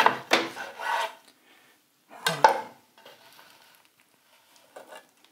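Kitchen knife crunching through the crisp deep-fried coating of a chicken burger, with crackling scrapes, then a single sharp knock of the blade on a wooden chopping board about two and a half seconds in.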